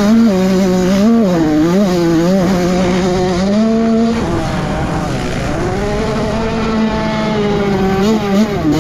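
Honda CR85 single-cylinder two-stroke motocross engine being ridden hard, revs rising and falling with the throttle. About four seconds in the revs drop, then hold fairly steady before a few quick blips near the end.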